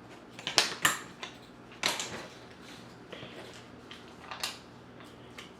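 Scattered sharp clicks and taps of kit parts being handled, several close together in the first two seconds, then a few more spread out.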